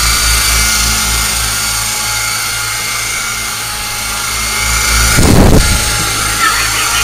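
Alloy Shark toy coaxial RC helicopter's electric motors and rotors running with a steady high whine. About five seconds in, a loud rushing burst of noise lasts about half a second.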